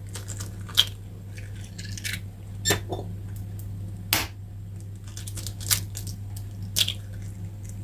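Two eggs cracked open over an enamel mixing bowl: a few separate sharp taps and clicks of eggshell, over a steady low hum.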